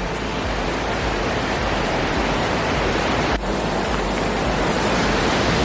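Steady rushing water, a loud even hiss with a single sharp click about halfway through.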